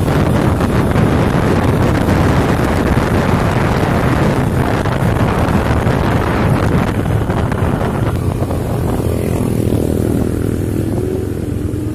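Wind rushing over the microphone of a moving motorcycle, with its engine running underneath. About eight seconds in the wind eases as the bike slows, and a steady engine hum comes through.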